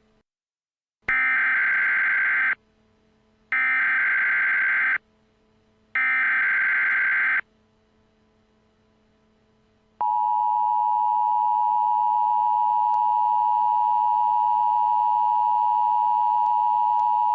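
Emergency Alert System header: three short bursts of shrill digital data screech, each about a second and a half long with a second's gap between them, followed about ten seconds in by the steady, harsh two-tone EAS attention signal.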